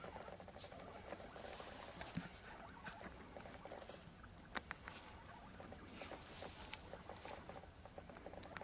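Faint, irregular crunching and rustling of a European bison chewing grass close to the microphone, with a sharper click about four and a half seconds in.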